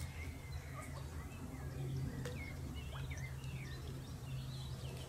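Small birds chirping in short rising and falling calls over a steady low hum.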